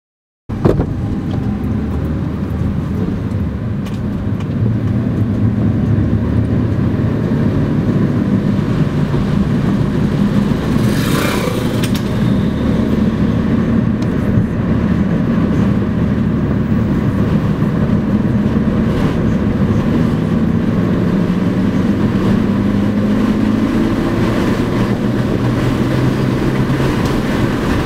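Motor vehicle driving on a road: steady engine, tyre and wind noise, with a brief rushing hiss about eleven seconds in and an engine note that climbs in pitch over the last several seconds as it accelerates.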